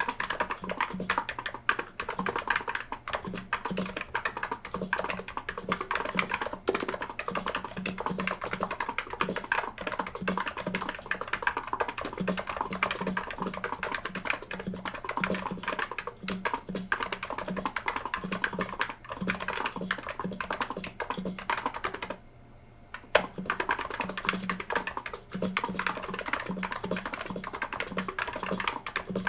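Continuous fast typing on a Niz keyboard with 55 g electro-capacitive switches, recorded through the camera's microphone. Dense key strokes with a slight scratchiness to each press, broken by a brief pause about 22 seconds in that ends with a louder key stroke.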